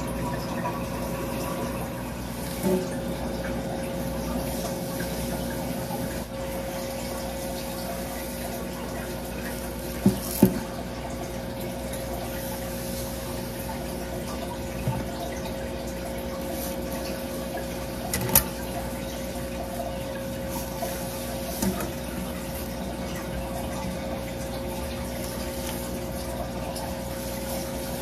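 Water running steadily into a stainless steel shampoo basin, with a constant low hum under it. A few short, sharp clicks are scattered through, two of them close together near the middle.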